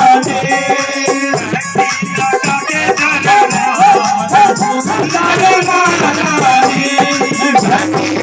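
Devotional bhajan music: a pitched melody line over a steady beat of shaken rattle percussion.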